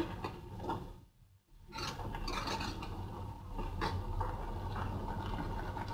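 Metal ladle stirring and scraping thick tomato masala in a metal kadai, with soft rubbing and small clicks, broken by a brief silent gap about a second in.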